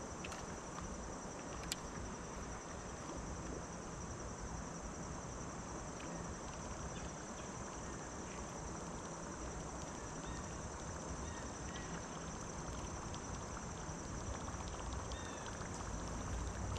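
Steady insect chirring over a faint low hum and a soft background rush, with a single sharp click about two seconds in.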